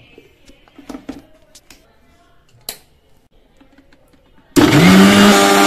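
A few light knocks and clicks as the mixer jar's lid is pressed on, then about four and a half seconds in an electric mixer grinder switches on abruptly, its motor pitch rising quickly as it spins up to a loud steady whine while blending milk with broken chocolate.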